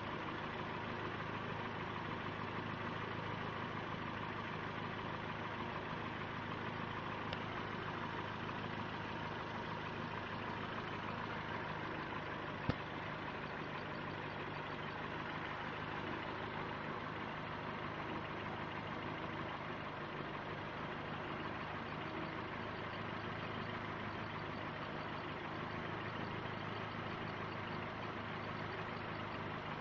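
Car engine idling steadily throughout, with one short sharp click about twelve seconds in.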